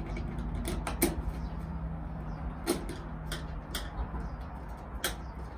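Scattered small clicks and knocks of a Phillips screwdriver backing screws out of a washing machine's water inlet valve mount and of the valve being handled against the metal back panel. The sharpest knocks come about a second in and again near three seconds, over a low steady hum.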